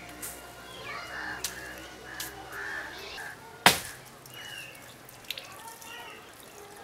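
Crows cawing again and again, with a few faint clicks and one loud sharp knock a little over halfway through.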